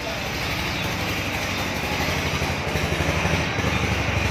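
A small engine idling steadily, with a low, fast even pulsing.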